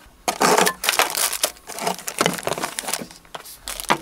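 Plastic packaging rustling and crinkling in irregular bursts, with a few knocks of a plastic carry case, as a handheld CNC router is unpacked from its case and bag.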